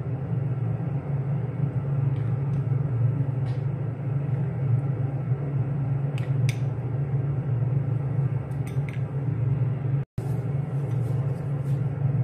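A steady low hum, with a few faint light clinks of a spoon against glass bowls and a baking dish as cooked lentils are spooned over rice. The sound cuts out for an instant about ten seconds in.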